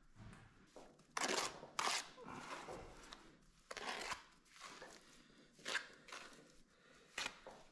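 Steel trowel scraping and scooping mortar on a mortar board, about five short, gritty scrapes a second or two apart.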